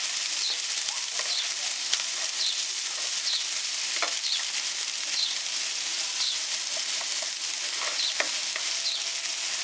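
Chopped onion, spring onion, capsicum, green chilli, garlic and ginger sizzling in hot oil over a high flame in a nonstick frying pan. A spatula stirs them with a steady hiss, scraping strokes come about once every second, and the spatula taps the pan a few times.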